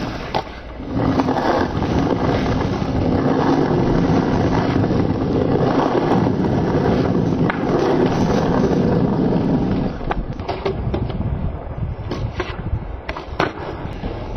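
Skateboard wheels rolling over rough asphalt, a loud steady rumble that dies away about ten seconds in. It is followed by a few sharp knocks of the board.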